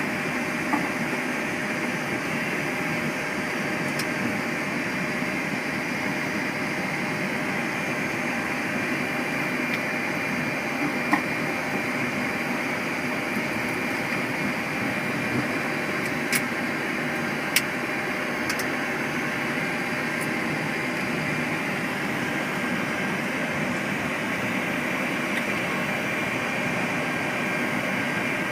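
Steady flight deck noise of a Boeing 737-800 on the ground: the idling engines and the air-conditioning and avionics fans make an even hum and hiss with faint steady tones. A few short clicks come through, about 1, 11, 16 and 17 seconds in.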